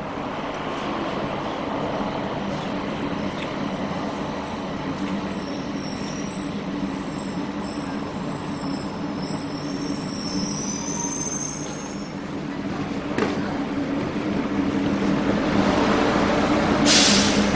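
Automated airport people-mover train running into the station: a steady hum with high, thin wheel squeals in the middle, then a short loud hiss near the end.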